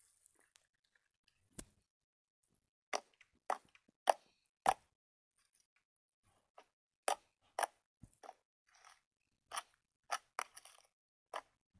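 Glossy gold slime being pressed and poked by hand, giving a dozen or so sharp, irregularly spaced pops and clicks as trapped air pockets burst, starting about a second and a half in.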